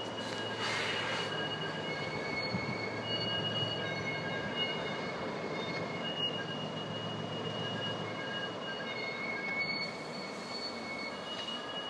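Train wheels squealing on the rails: several high squeals at different pitches come and go over a low rumble, which eases off about eight seconds in.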